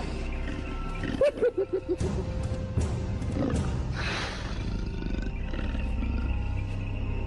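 Leopard and spotted hyena snarling at each other in a standoff: a quick run of about six short growling grunts a little over a second in, and a hissing snarl around four seconds, over background music.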